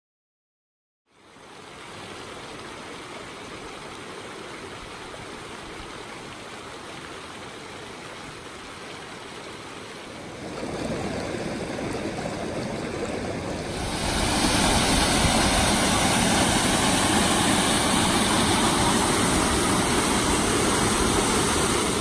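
Running water of a rocky creek, a steady rush of flowing water. It starts about a second in and gets louder in two steps, about ten and fourteen seconds in.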